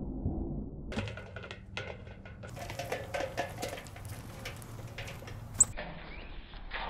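Faint background music under scattered light knocks and rustling, with one short, high, sharp sound about five and a half seconds in.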